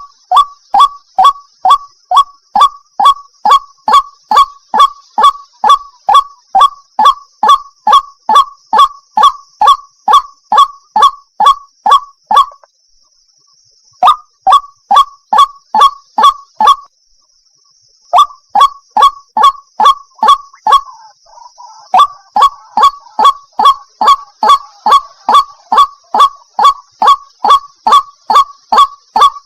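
White-breasted waterhen (ruak-ruak) calling: a rapid, unbroken series of loud, honking notes, about two and a half a second, twice pausing briefly. This is the female's call to a male, used as a hunting lure.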